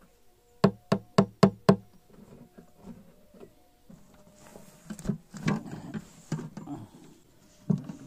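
Five quick, sharp knocks on the wooden panel of a homemade wooden beehive box, about four a second, starting about half a second in; later come softer scattered knocks and rubbing of wood as the panel is worked into the frame.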